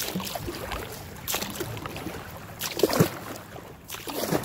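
Kayak paddle strokes splashing in fast river current, about four strokes roughly a second apart, the loudest about three seconds in.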